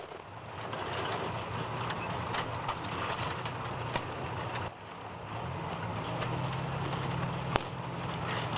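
World War II jeep's engine running steadily as it tows a field gun, cut off abruptly about halfway through and then coming back. Faint scattered pops of gunfire underneath, and a single sharp crack near the end.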